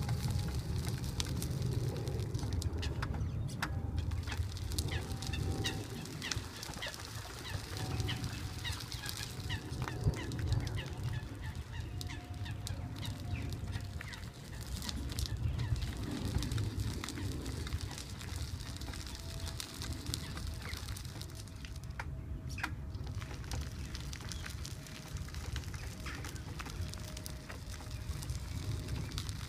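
Power wheelchair driving along a gravel path: a faint steady motor whine that drifts slightly lower, tyres crunching on gravel and a low rumble. Waterfowl call now and then, mostly in the first half.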